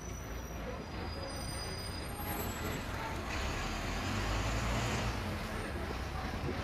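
Street traffic, with a heavy vehicle's low engine rumble swelling to its loudest a little past halfway, and a hiss over it at the same time.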